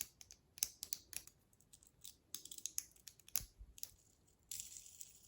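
Irregular light clicks and taps of small hard plastic parts being handled, with a short rustle near the end.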